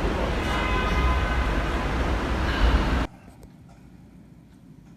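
Loud vehicle noise: a steady low rumble with a faint high whine. It cuts off abruptly about three seconds in, leaving a much quieter room tone.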